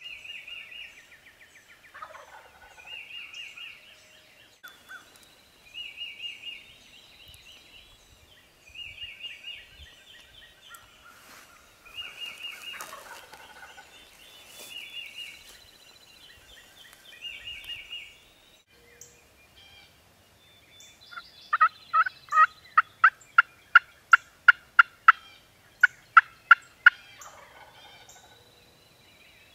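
Wild turkey gobbles mixed with repeated songbird calls every few seconds. About 21 seconds in comes a loud series of about twenty sharp turkey yelps, three or four a second, lasting about six seconds.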